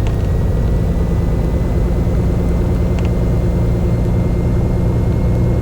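Beechcraft Bonanza's six-cylinder piston engine running steadily at low power after touchdown, heard from inside the cabin.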